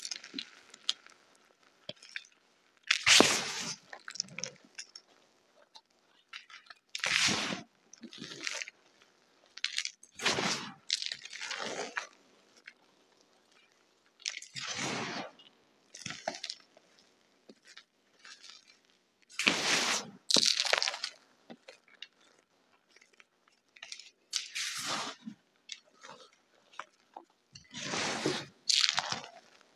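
Hands squeezing and crushing crumbly gym chalk: about a dozen short, gritty crunches, one to three seconds apart, with little sound between them.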